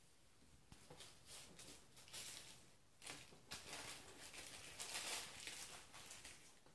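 Quiet, irregular rustling and crinkling as a Persian cat rolls on a tile floor and paws and bites a small plastic bag of dried catnip. It starts about a second in and comes in uneven bursts.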